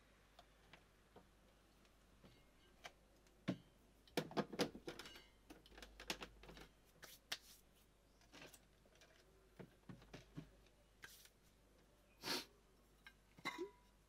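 Quiet, scattered clicks and knocks from handling espresso gear: coffee tamped in the portafilter and the portafilter fitted to the espresso machine. The knocks come thickest about four seconds in, and near the end a metal clink rings briefly.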